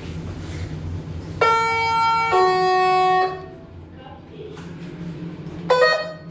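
Lift arrival chime: two clear notes, the second lower, each ringing for about a second. A steady low hum runs under it, and a short beep, the sound of a lift button, comes near the end.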